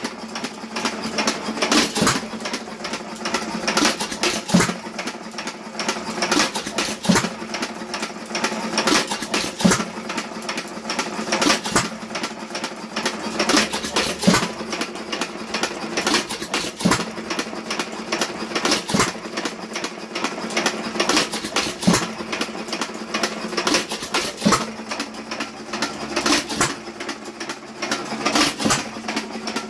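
Associated 1.75 hp air-cooled hit-and-miss engine running, with a steady rapid mechanical clatter and a sharp bang about every two and a half seconds as it fires and then coasts on its flywheels between hits.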